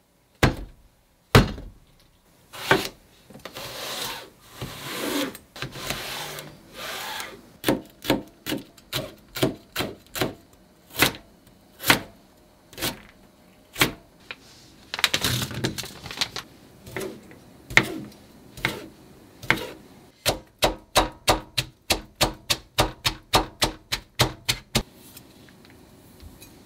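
Kitchen knife chopping carrots and pickled radish on a plastic cutting board: sharp knocks of the blade on the board, with a few longer scraping sounds. The strokes settle into a steady run of about two a second, and near the end come faster, about three a second.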